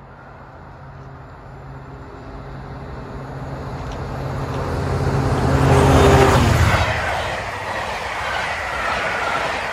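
A diesel locomotive approaching and passing through at speed, its engine note growing louder to a peak about six seconds in. After that comes the steady rush and rattle of passenger coaches rolling past on the rails.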